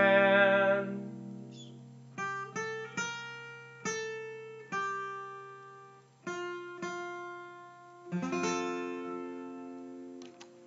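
Acoustic guitar closing a song: a strummed chord fades out, then a few slow single plucked notes each ring and decay, and a final chord about eight seconds in rings out slowly.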